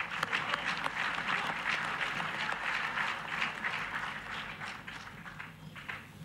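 Audience applauding, loudest over the first few seconds and dying down near the end.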